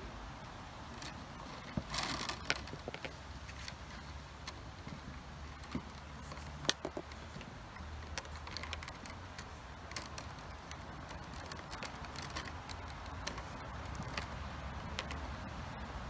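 Soaked buff willow rods clicking and creaking against one another as they are woven by hand, in scattered small ticks, with a sharper click about seven seconds in.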